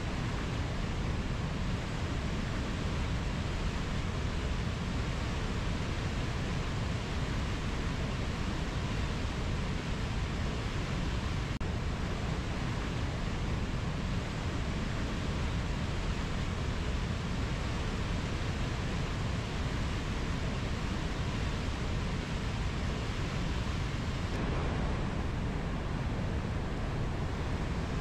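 Mountain river running over low rapids: a steady rushing of water with a deep rumble underneath.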